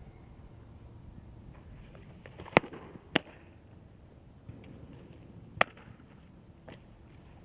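Sharp pops of a softball smacking into leather gloves: two loud ones about half a second apart near the middle, another loud one a couple of seconds later, and a fainter one after it.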